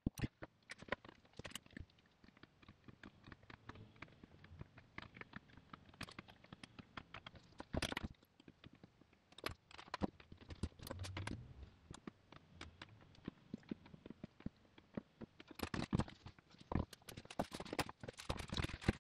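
Scattered light clicks and knocks of hard plastic seat trim pieces and hand tools being moved and set down on a workbench, busier near the end.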